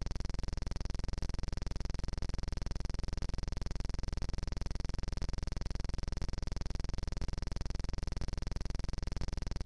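A steady, unchanging buzzing drone with a fast, even pulse, most likely an added background sound bed. No crash or knock of stone is heard.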